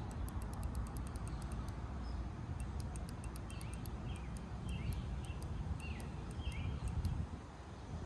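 Outdoor background of short bird chirps over a steady low rumble, with a fast, faint high ticking. The faulty door-handle multifunction switch, pressed to test it, gives no click.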